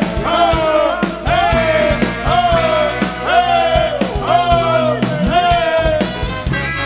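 Live funk band playing an instrumental stretch: a pitched riff that slides down in pitch repeats about once a second over drums and bass.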